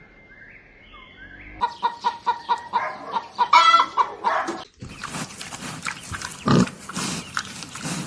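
Chickens clucking in quick repeated pulses, then from about five seconds pigs grunting, with one loud low grunt a little after six and a half seconds.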